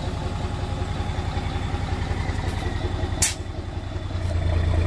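Mitsubishi Fuso truck's diesel engine running steadily with a low hum. About three seconds in comes one short, sharp burst of hiss, and in the last second the engine grows louder.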